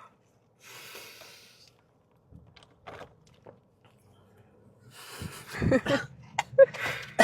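A person's breathy exhales, then a louder outburst of coughing and spluttering about five seconds in, typical of a reaction to spicy chicken wings.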